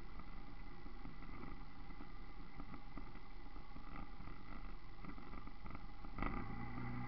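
Muffled low rumble of an off-road vehicle moving slowly along a dirt trail, with a faint steady whine over it. A knock about six seconds in, after which a steady engine hum comes up.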